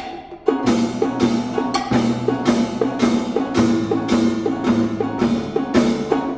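Three percussionists and a pianist playing contemporary chamber music: a steady run of sharp mallet and drum strokes with short pitched notes, over low held notes.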